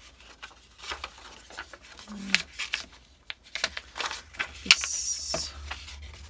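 Sheets of folded copy paper rustling and crinkling as they are handled and unfolded, with light taps and clicks; a longer, higher rustle comes about five seconds in.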